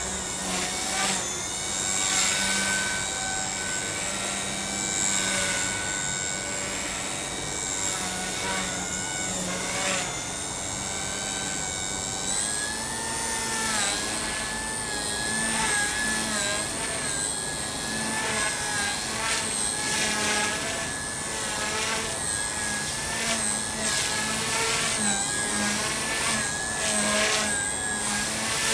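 Align T-Rex 150 DFC micro electric RC helicopter in flight: a high motor and rotor whine that keeps rising and falling in pitch as the throttle and blade load change during aerobatic manoeuvres, with repeated short swishing surges from the rotor.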